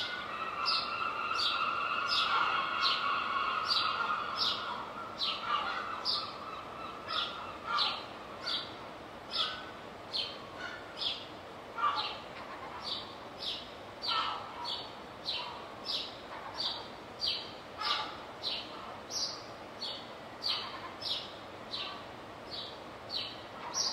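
A songbird calling, one short high chirp repeated steadily about twice a second, with a longer, lower call held over the first five seconds.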